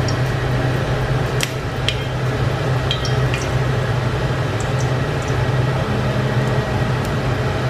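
A little oil heating in an empty stainless steel wok on a gas hob, giving a few sharp pops and ticks over a steady low hum.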